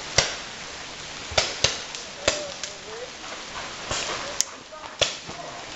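Paintball markers firing: about seven sharp pops at irregular intervals, with faint shouting voices between the shots.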